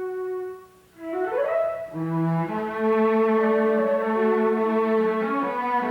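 Orchestral background music on bowed strings. A held note fades out, and after a short gap the strings enter with a quick rising phrase that settles into sustained chords.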